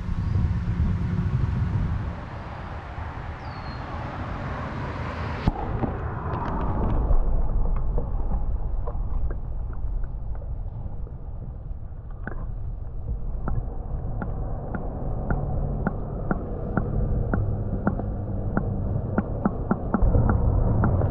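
Outdoor noise with a low rumble, then about five seconds in the high end cuts off suddenly as the camera's microphone goes under the water. What follows is muffled underwater sound: a low rumble with scattered sharp clicks that come more often toward the end.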